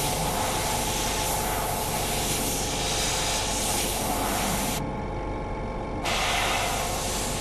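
Airbrush hissing as it sprays dark green camouflage paint onto a scale model tank, over a steady low hum. The hiss breaks off for about a second past the middle, then resumes.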